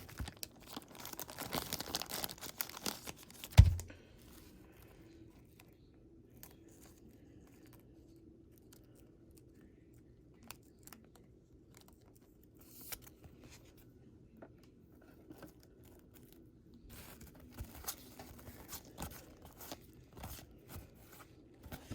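Trading-card pack wrapper being torn open and crinkled for about three seconds, ending in a single dull thump, then mostly quiet with scattered light clicks and crinkles as the cards are handled, picking up again near the end.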